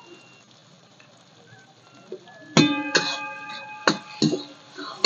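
A metal ladle clanks against a metal kadhai several times in the second half as green chillies are stirred, and the pan rings after each strike.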